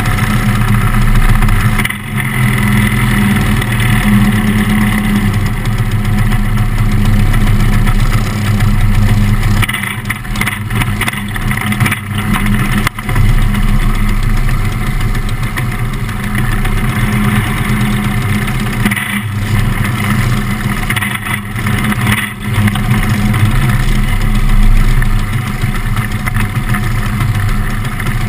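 Onboard engine of a small winged dirt-track race car running steadily at low speed, rolling in line with other cars whose engines are also running. Its sound dips briefly a few times.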